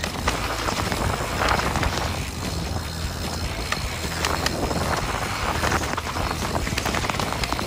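Mountain bike descending a dirt forest trail at speed: steady tyre and rolling noise with a dense run of sharp clicks and rattles from the bike over the bumpy ground, over a low rush of wind on the microphone.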